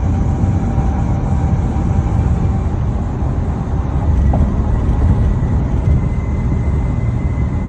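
A moving car's steady road and wind noise, with a faint, thin whistle held on one pitch above it that grows clearer near the end. The whistle appeared after auto body repair work.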